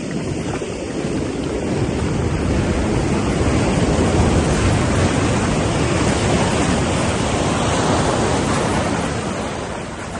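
Pacific Ocean surf breaking on the beach: a loud rush of breaking water that builds over the first few seconds and eases off near the end.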